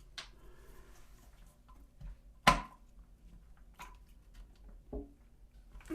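Flat screwdriver clicking and tapping against a plastic toilet seat hinge and its hold-down bolt: a few scattered small clicks, with one sharp, louder click about two and a half seconds in.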